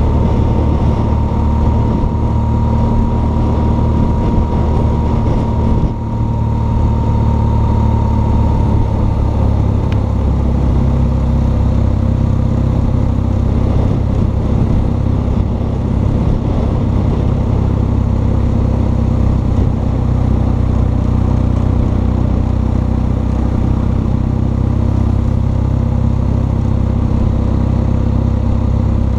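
BMW R1200 GS Adventure's flat-twin boxer engine running steadily while the motorcycle cruises along an open road, heard from the bike along with the rush of wind. A brief dip in level comes about six seconds in.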